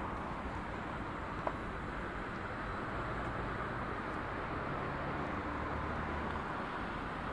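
Steady outdoor city ambience: a continuous wash of distant traffic noise rising from the streets below, with one short tick about a second and a half in.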